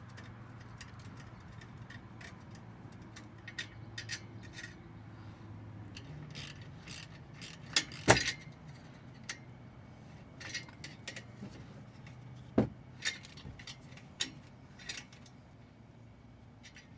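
Irregular small metallic clicks and taps of hand tools and loose hardware as the bolts of a car's exhaust valve actuator are undone, with a sharp clack about eight seconds in and another a little after twelve seconds. A steady low hum runs underneath.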